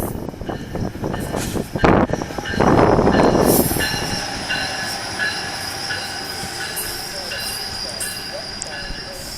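Amtrak train hauled by an ACS-64 electric locomotive passing at speed: wheels clacking over the rails, a loud rush as the locomotive goes by about three seconds in, then a high squeal from the wheels that cuts in and out as the cars follow.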